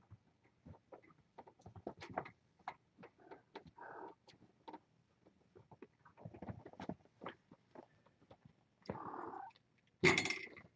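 Kittens scampering and play-fighting in a pen: many faint, scattered taps and scuffs of small paws and claws, then near the end a loud rattle of the wire pen fence as a kitten runs into it.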